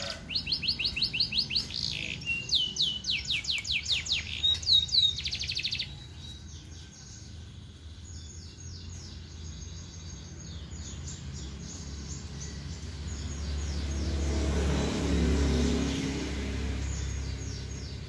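Young canary singing loud, rapid trills of quickly repeated notes for about six seconds, then quieter song. A low rumble swells and fades about three-quarters of the way through.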